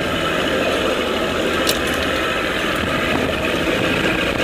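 Outboard motor running steadily at low speed, with an even wash of engine and water noise.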